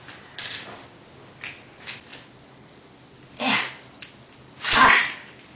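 Two loud, short bursts of a person's voice, like explosive sneeze- or cough-type sounds, a little over three seconds in and about five seconds in; the second is louder. A few faint small knocks or rustles come before them.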